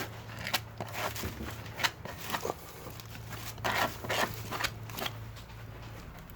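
Filler being worked with a hand spreading tool: short, irregular scrapes and clicks, over a steady low hum.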